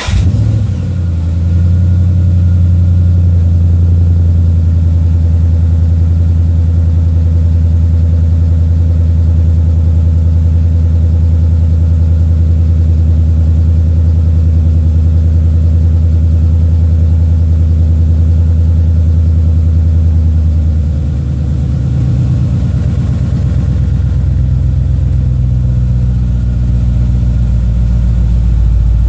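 2012 Ford Mustang GT's 5.0 V8 fast-idling on a cold start through a Flowmaster American Thunder axle-back exhaust, just after catching. About two-thirds of the way through, the idle steps down to a lower, deeper note.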